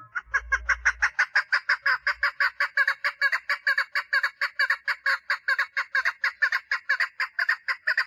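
Female chukar partridge calling for a mate: a fast, even series of short, repeated notes, about five a second, starting abruptly and kept up without a break.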